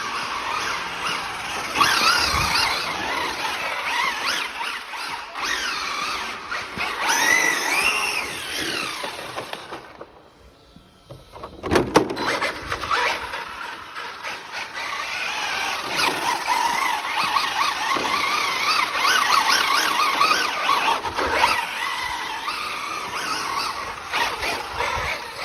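Maverick Quantum R Flux 1/8-scale brushless electric RC car driving hard, its motor whine rising and falling with the throttle over tyre noise and squealing. It goes quiet for about a second and a half in the middle, then a sharp knock comes as it picks up again.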